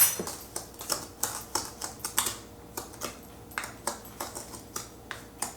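A utensil stirring a sugar, cornstarch and mashed-fruit mixture in a saucepan, clicking against the pan at about three strokes a second.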